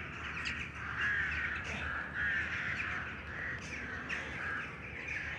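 A flock of crows cawing, many calls overlapping one another without a break.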